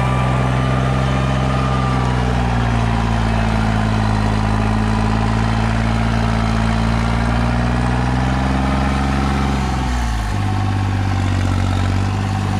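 New Holland 3630 tractor's three-cylinder diesel engine running hard at high revs, pulling an eight-foot super seeder through the soil; the engine, which the owner has had modified, holds its speed under the load without bogging down. Its note drops a little about ten seconds in.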